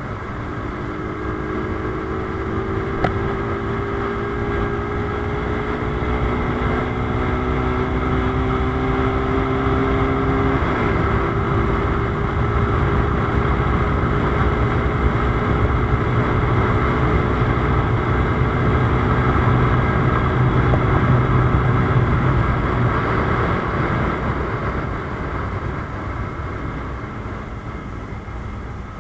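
Rusi Gamma 200 motorcycle's engine and exhaust at high speed, the note climbing slowly in pitch, with a brief break about ten seconds in like a gear change. It then holds steady before the throttle eases off and the note fades over the last few seconds.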